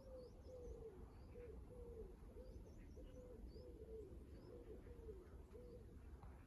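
A pigeon cooing faintly, a run of low repeated notes that stops near the end, with a few faint high small-bird chirps.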